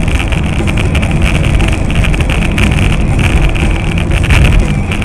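Loud, steady running noise of a moving vehicle, engine and road rumble, with wind on the microphone.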